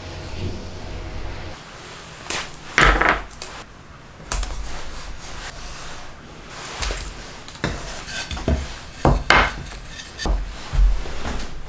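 Plywood pieces being handled and set down on a plywood workbench: a string of irregular wooden knocks and clatters, some sharp and loud, with rubbing between them.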